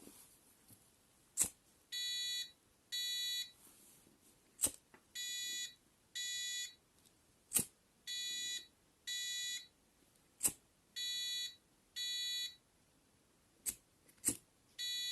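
Arduino flame-alarm buzzer beeping in pairs of steady, high-pitched beeps, a pair about every three seconds: the alarm set off by the flame sensor detecting a flame. A short sharp click comes just before each pair.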